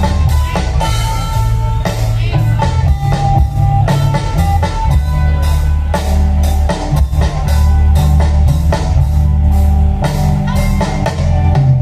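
Live band music played through a large outdoor PA sound system: heavy bass, a drum kit keeping a steady beat, and guitar and melody lines over it.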